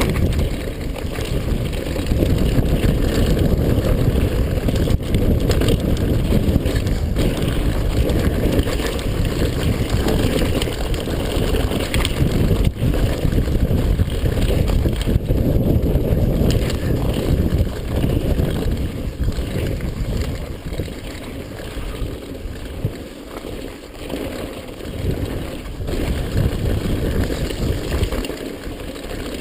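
Wind buffeting the camera microphone during a fast downhill run: a steady low rush with a few sharp knocks, easing a little past the middle.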